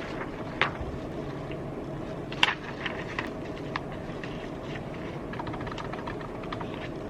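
Steady background hum with a few scattered light clicks and taps, the sharpest about two and a half seconds in.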